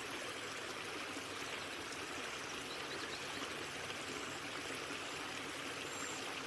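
Running water trickling steadily at a pond, an even, unbroken wash.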